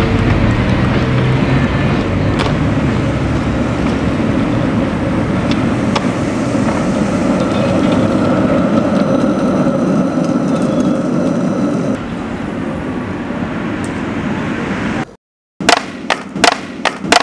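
Skateboard wheels rolling on street asphalt: a steady loud roll noise with a few small clicks, which gets quieter about twelve seconds in. After a brief cut near the end come several sharp knocks.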